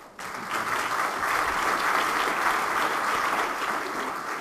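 Audience applauding, starting abruptly and holding steady, then beginning to fade near the end.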